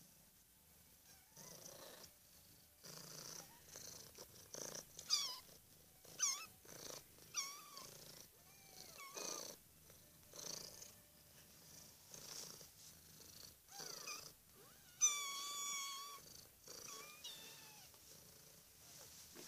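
Cat purring in steady cycles, with five-week-old kittens giving short, high mews that fall quickly in pitch. The loudest is a longer, wavering mew about fifteen seconds in.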